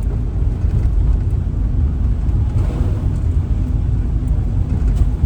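Camper van driving along the road: a steady low rumble of engine and tyre noise, heard from inside the cab.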